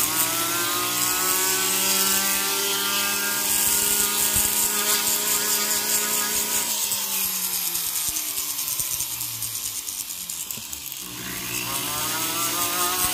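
Flex shaft rotary tool whining as it spins a sandpaper disc against a gold ring, with a sanding hiss, to clear super glue off the ring. Its pitch sags from about seven seconds in as the speed drops, then rises again near the end as it speeds back up.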